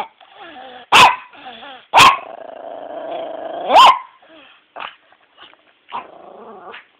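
A pet dog growling, with three sharp barks about one, two and nearly four seconds in, then quieter broken growls near the end. These are the warning growls and snapping barks of a dog annoyed at being woken and handled.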